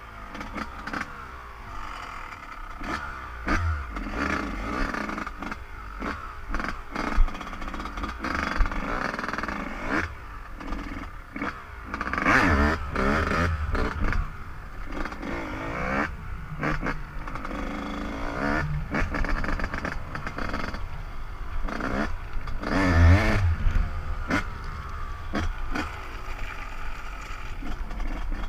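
Dirt bike engine running and revving up and down as it is ridden, pulling hardest about twelve seconds in and again about twenty-three seconds in, with frequent knocks and clatter.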